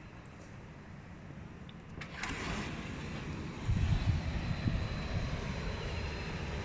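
Wind rumbling and buffeting on the microphone, growing louder and gustier a little over halfway through, with a brief rustling noise about two seconds in.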